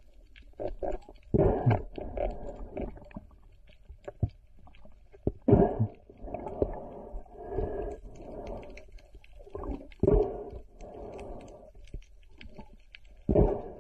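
Muffled underwater noise heard through an action camera's housing as a freediver swims: rhythmic swooshes of water about every half second to a second, with a few louder knocks against the housing.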